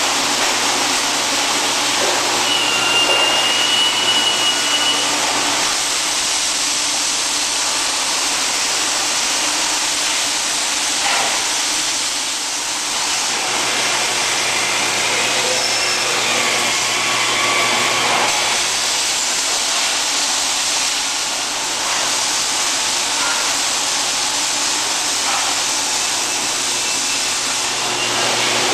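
Steady hissing machine din of a robotic welding production line, with a low hum, a few faint clicks and a brief high whistle about three seconds in.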